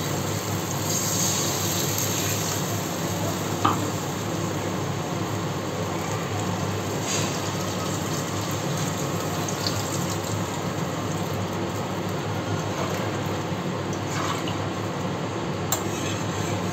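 Water poured in a stream into a kadai of frying spiced potatoes and peas, with a ladle stirring and knocking against the pan near the end.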